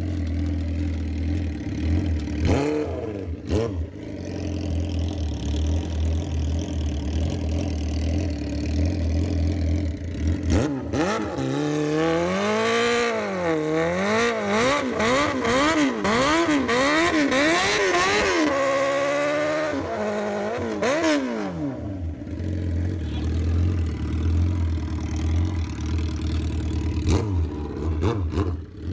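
Suzuki GSX-R750 inline-four with a Brocks exhaust idling, then revved hard during a burnout: from about ten seconds in the revs climb and are held high, rising and dipping with the throttle for several seconds while the rear tyre spins, before dropping back to idle about twenty seconds in.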